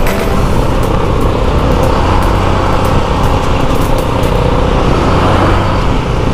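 Wind rushing loudly over the microphone of an action camera on a moving motor scooter, with the scooter's engine running steadily underneath as it slows from about 40 km/h.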